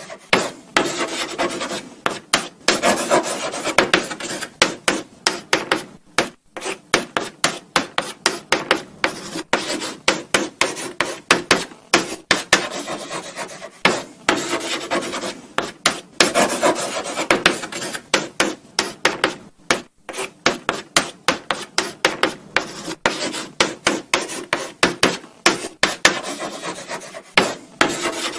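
Chalk writing on a blackboard: quick, irregular scratchy strokes with sharp taps as the chalk meets the board, pausing briefly now and then between words.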